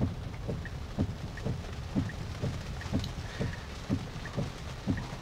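Tesla Model Y turn-signal indicator ticking in the cabin, about two clicks a second, over a steady hiss of rain on the car.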